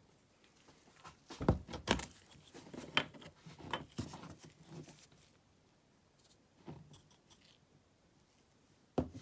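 Small clicks and taps of weathering chalks and a brush being picked up and handled on the workbench. They cluster in the first five seconds, then a quiet stretch, then one sharp click near the end.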